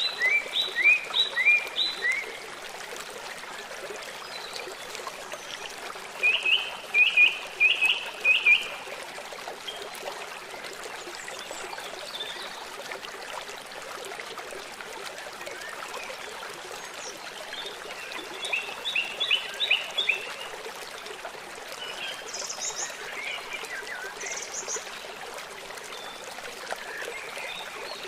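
A songbird singing quick runs of short, falling notes three times, with a few short higher notes later, over the steady rush of a flowing stream.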